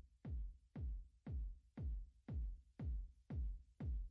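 Background electronic music with a steady kick drum, about two beats a second.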